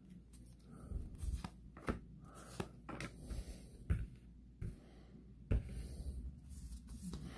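Baseball cards being handled and set down on a tabletop: soft, irregular taps and clicks with light rustling as the cards are sorted and slid into place.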